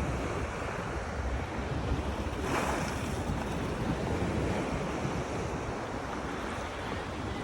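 Sea waves washing in, one breaking more loudly about two and a half seconds in, with wind buffeting the microphone.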